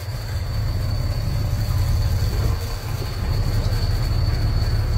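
Steady low rumble of a sportfishing boat's engine running, with a faint steady high whine over it.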